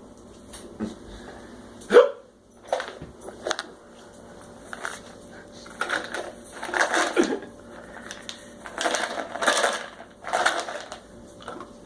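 A man with persistent hiccups hiccuping: one sharp hiccup about two seconds in is the loudest sound, followed by several more breathy bursts of sound.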